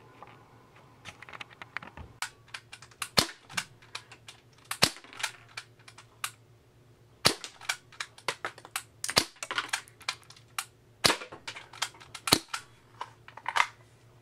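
Y&P MK23 green-gas airsoft pistol firing a string of shots, each a sharp pop a second or more apart, with lighter clicks and taps in between. The gun is shooting in sub-50°F cold, which the owner says makes it work poorly.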